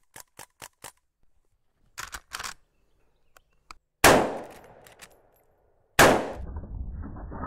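A few short light pops from a CO2-powered BB gun in the first second, then two loud shots from a scoped lever-action rifle about two seconds apart, each ringing out afterwards.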